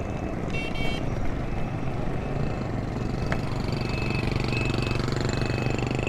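Motorcycle engine running steadily under way, with road noise. There is a brief high beep about half a second in and a single sharp click near the middle.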